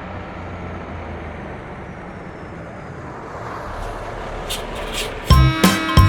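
A steady bus engine and traffic rumble, as a sound effect. About five seconds in, bouncy music with a strong beat and chimes starts.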